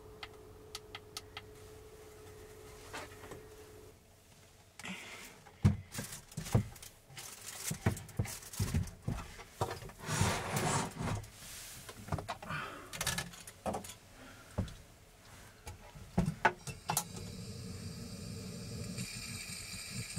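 Camping gear being handled in a small wooden room: irregular knocks, clicks and rustling as things are picked up and set down on a wooden table. A steady hiss comes in near the end.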